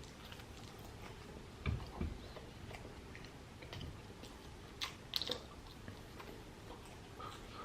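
A person chewing and biting chicken biryani close to the microphone, with scattered short mouth clicks and smacks, the sharpest about five seconds in.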